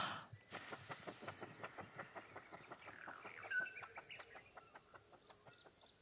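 A short breath blown out at the start, then faint rainforest ambience: insects chirping in a quick, even clicking about five times a second, with a brief rising bird call about three and a half seconds in.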